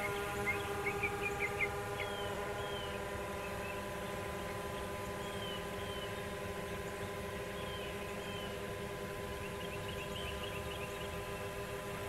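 Mavic 2 Zoom quadcopter's propellers and motors running with a steady, many-toned whine. Birds chirp over it, in a quick cluster of short calls at the start and a few single calls later on.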